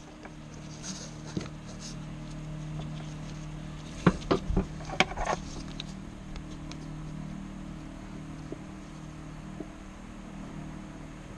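Toyota Land Cruiser Prado 3.0 turbo diesel engine running at a steady idle, with a handful of sharp clicks and knocks about four to five and a half seconds in.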